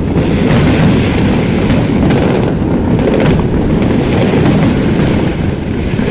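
Fireworks going off in rapid succession: a loud, continuous rumble of overlapping booms with frequent sharp cracks throughout.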